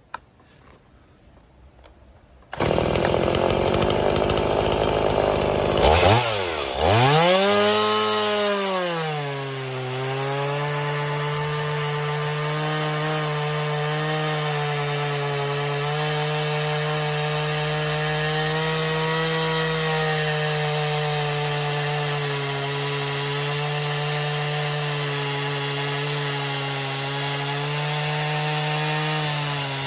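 Two-stroke chainsaw cutting through wood. It comes in suddenly about two and a half seconds in, its engine note swings up and back down, then settles into a steady pitch held under load in the cut.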